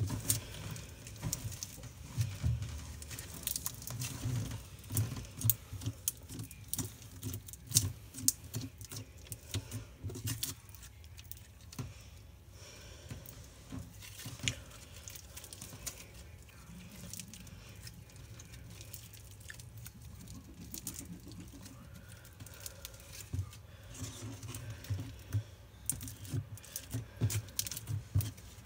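Slime being squeezed and poked by hand, making fast, irregular sticky clicks and small pops. They come thickest at the start and again near the end, and thin out in the middle.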